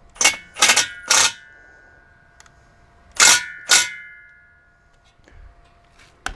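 Metal wrought iron gate post knocked with the body of a cordless drill: three sharp metallic strikes in quick succession, then two more about two seconds later, each leaving a short ringing tone, as the post is tapped over to plumb.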